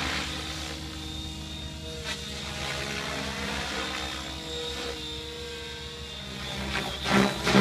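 Align T-REX 700L electric RC helicopter in flight: a steady rotor and motor drone whose pitch shifts slowly as it manoeuvres. Near the end comes a loud, rapid pulsing of the rotor.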